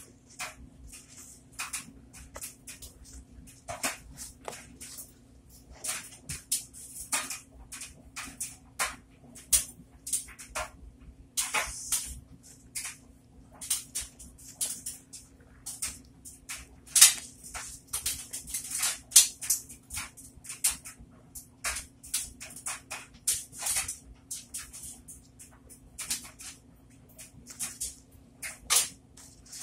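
A soap-soaked sponge squeezed and squished by gloved hands in a bucket of thick suds: irregular wet squelches and crackling foam, several a second, over a faint steady hum.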